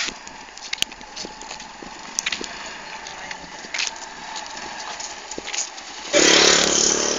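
Low outdoor background with scattered light clicks and knocks. About six seconds in, a small engine starts sounding loudly close by.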